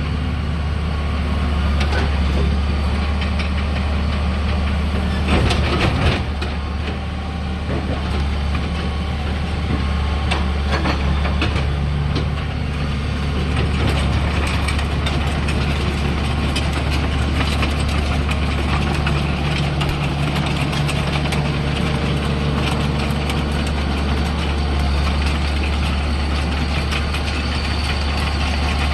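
Hitachi ZX60 excavator's diesel engine running steadily, with scattered clicks and clanks over it and a louder clatter about five seconds in.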